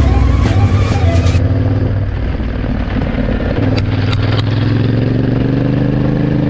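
Enduro motorcycle engine running under way, heard from the bike itself. From about halfway through, its note climbs steadily as the bike accelerates, with a few short ticks around then.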